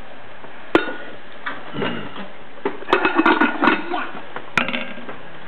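A few sharp knocks: a loud one about a second in, then more near the three-second mark and again near the end, with a short stretch of indistinct voice between them.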